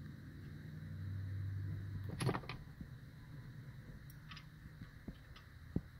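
Hand tools clinking on the valve train of a Detroit DD15 diesel engine during a valve-lash adjustment: one metallic clatter about two seconds in and a few light clicks after it. A steady low hum runs underneath for the first two seconds.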